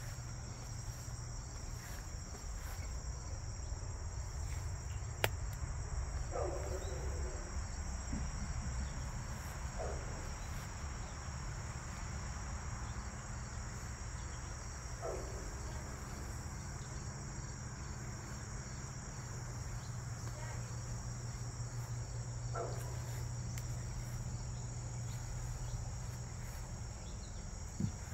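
A steady, high-pitched chorus of late-summer crickets trilling without a break, over a low rumble. A few faint short calls rise above it now and then.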